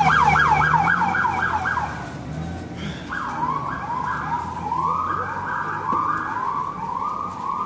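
Ambulance electronic siren sounding loudly: a fast yelp for about two seconds with a low rumble underneath, then, after a brief gap, a slower cycle of repeating rising sweeps.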